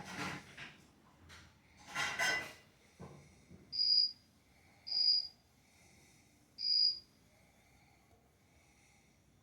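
Two short noisy bursts, then three separate high, clear cricket chirps about a second or two apart, from the model railway layout's cricket sound effect, over a faint steady high background chirring.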